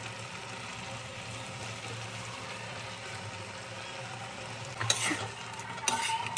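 Grated carrots cooking in ghee and milk in a kadai, sizzling steadily. From about five seconds in, a metal spatula scrapes and clicks against the pan as the halwa is stirred.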